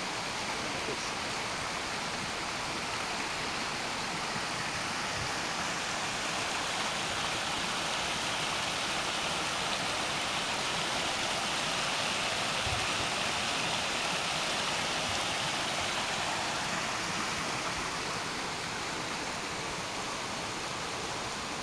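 Small mountain stream rushing over rocks, a steady hiss of flowing water that grows slightly louder in the middle.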